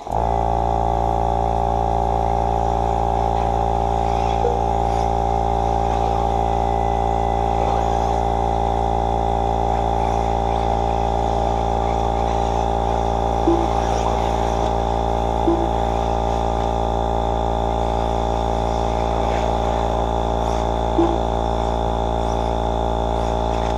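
A loud, steady electrical hum, many pitches held completely unchanged, that starts and cuts off abruptly.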